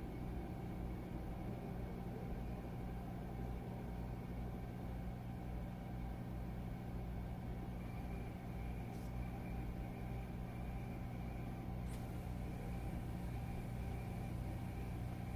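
A steady low electrical hum at an even level, with two faint ticks, about nine and twelve seconds in.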